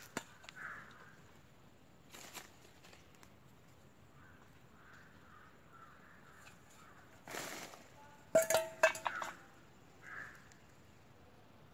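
A stainless steel bowl clattering with a brief metallic ring as it is handled and set down on the ground, a quick run of sharp clanks about eight seconds in. A few faint knocks and rustles come before it.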